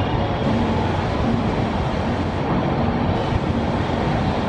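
Steady running noise of a moving passenger train.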